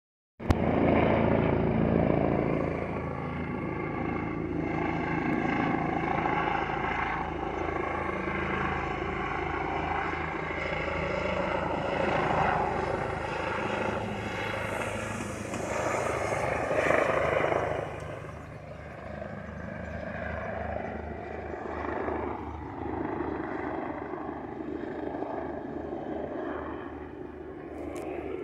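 Bell 429 twin-turboshaft helicopter flying in on its landing approach: a continuous rotor beat with engine noise, easing off somewhat after about 18 seconds.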